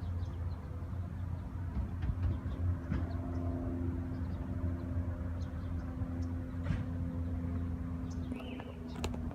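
Steady low engine-like hum, with a few faint clicks and a short high chirp near the end.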